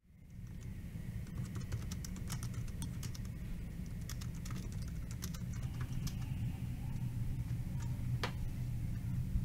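Light, irregular clicking over a steady low rumble, with one sharper click about eight seconds in.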